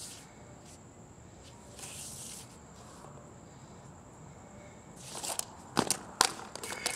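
Hula hoop being kicked up off a concrete driveway with a boot: soft scuffing, then a quick run of sharp knocks and clatters as the hoop and boot strike the concrete in the last two seconds.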